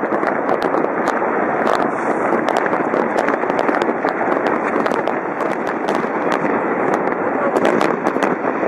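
Fireworks display going off continuously: a dense, unbroken din studded with many sharp cracks and pops of bursting shells.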